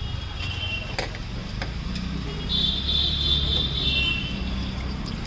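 Steady low rumble of street traffic, with two sharp clicks about a second in and a high, wavering tone from about two and a half to four seconds in.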